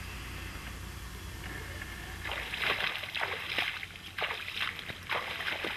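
A person wading through shallow water, the legs splashing with each stride, about two splashes a second. It starts about two seconds in, after a steady low rumble.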